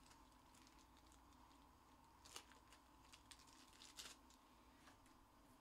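Near silence: faint room tone with a low steady hum and a few soft clicks and rustles, two of them a little louder about two and a half and four seconds in.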